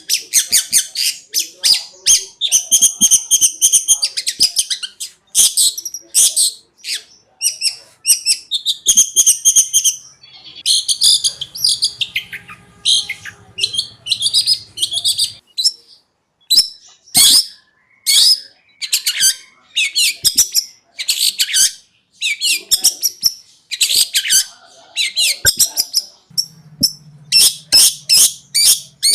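Long-tailed shrike (cendet) singing a fast, varied song of short sharp notes and rattling chatter, with only brief gaps.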